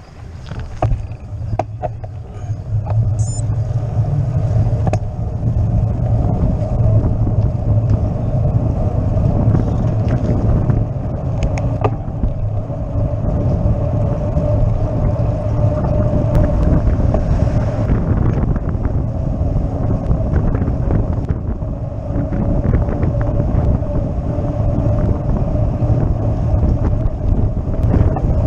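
Wind buffeting the microphone of a camera on a moving road bike, over the steady rumble of the tyres rolling on asphalt, rising over the first few seconds and then holding steady.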